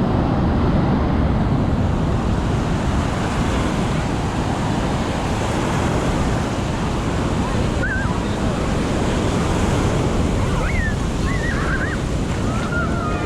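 Ocean surf breaking and washing onto the beach, a steady rushing, with wind buffeting the microphone.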